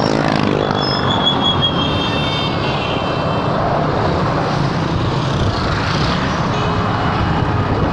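Steady, loud motor vehicle noise with brief high-pitched tones about a second in and again near the end.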